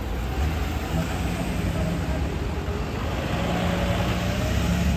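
Motorcade vehicles, a large truck and an ambulance among them, driving past close by with engines running and tyre noise; the sound swells slightly near the end.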